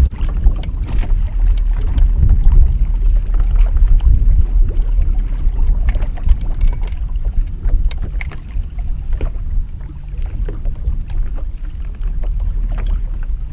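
Wind rumbling on the microphone over choppy water lapping at a boat, with scattered light clicks.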